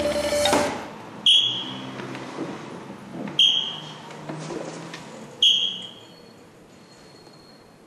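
A guitar-backed music cue cuts off under a second in, followed by three short, sharp high-pitched ringing tones about two seconds apart, each fading quickly.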